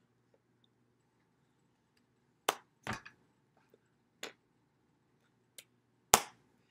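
A handful of sharp slaps of hands striking together while signing: about five in the space of four seconds, unevenly spaced, the loudest near the end. A faint steady low hum runs underneath.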